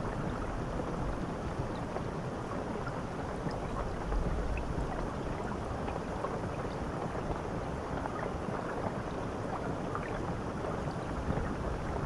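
Shower head running, water pouring steadily onto a tiled shower floor and wall: an even rush with a deep rumble underneath and faint scattered droplet ticks.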